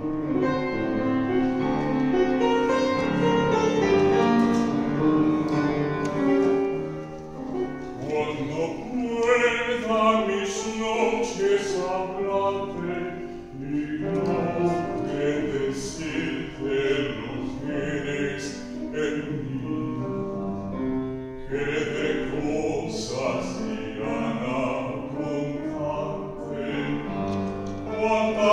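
Bass-baritone singing a bolero in an operatic style, with piano accompaniment.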